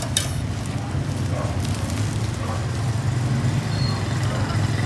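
Steady low rumble of street traffic and engines, with two sharp knocks right at the start.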